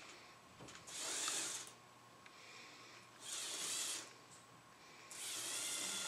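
LEGO Technic 8275 bulldozer's small electric motors and plastic gearing whirring in short bursts of about a second each, three times, as the remote-controlled toy is driven and turned on its tracks.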